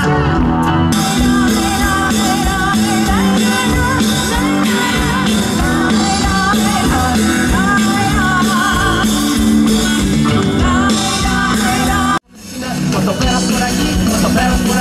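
Live rock band music with electric guitars, bass and drums. It breaks off abruptly about twelve seconds in and starts again straight after.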